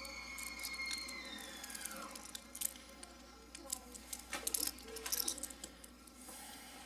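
Light metallic clicks and taps as a pocket clip and its small T6 Torx screws are fitted to a folding knife's handle with a precision screwdriver. A faint thin high tone slides down in pitch over the first two seconds.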